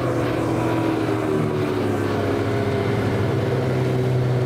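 Twin 25 hp two-stroke outboard motors running together at speed on a small aluminium boat, with a steady drone whose pitch eases down slightly near the start and then holds.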